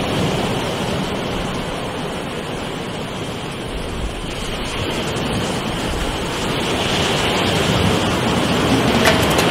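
Ocean surf: waves breaking and washing up, a steady rushing noise that swells slightly toward the end.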